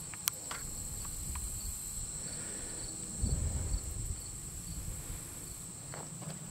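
Crickets chirring in a steady, high-pitched chorus. Low rustling and a few short clicks come through about three seconds in.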